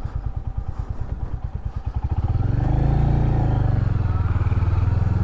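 Royal Enfield Hunter 350's single-cylinder engine running at low revs as the bike rolls slowly, its separate firing beats plainly audible. About halfway through the throttle opens and the engine note rises briefly, then holds steady.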